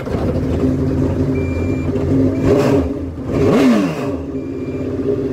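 Yamaha 1800 cc jet ski engine running just after starting, blipped twice near the middle, the revs rising and falling each time; it runs rough and misfires. A short high electronic beep sounds a few times.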